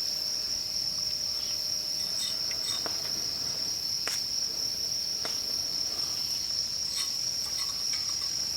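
Steady high-pitched chorus of crickets, with a few sharp crackles from the wood fire in the Solo Stove.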